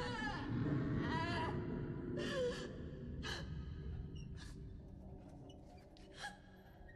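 A woman crying out in short, wavering sobs, then gasping for breath in sharp, shaky inhalations about once a second, over a low droning rumble.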